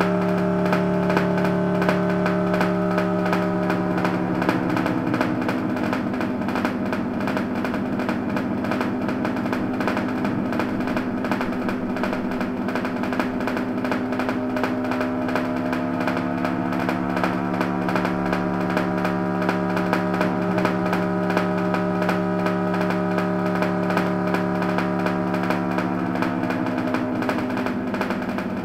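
Music: held, buzzing, distorted synth chords, changing chord a few times.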